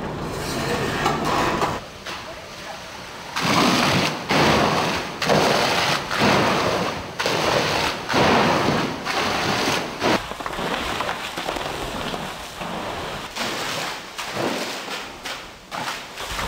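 Fire hose stream spraying water against a fire-exposed high-impact gypsum wall in the ASTM E119 hose stream test, a loud rushing spray. From about three and a half seconds in it surges about once a second, and after about ten seconds it runs on more evenly.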